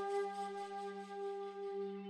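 Background music: a single sustained ringing tone with a stack of overtones, wavering gently and slowly fading.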